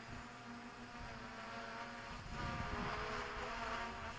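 DJI Mavic Pro quadcopter's propellers buzzing as it flies backwards in gusty wind: several steady tones that waver slightly and swell louder about halfway through. A low wind rumble sits underneath.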